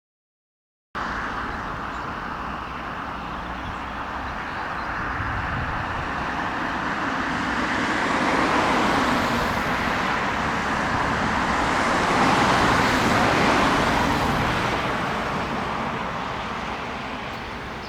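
Vehicle noise: a steady rushing without a clear engine note that starts about a second in, swells to a peak about twelve seconds in, then fades.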